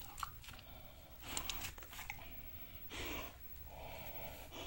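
Dog eating kibble from a metal bowl: a few crunches and clicks in the first two seconds, then the odd, noisy breathing she makes while eating, two long breaths in the second half.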